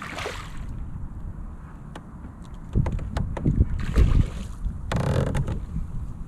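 Wind rumbling on the microphone, then from about three seconds in a run of loud knocks and bumps against the kayak.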